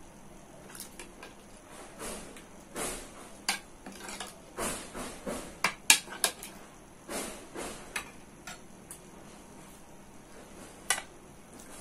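Eating by hand: fingers mixing rice on a plate, with scattered short clinks and taps of a spoon against crockery, the sharpest about six seconds in.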